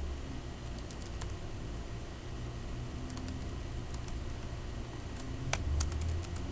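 Typing on a computer keyboard: a few quick keystrokes about a second in and a louder flurry of clicks near the end, over a low background hum.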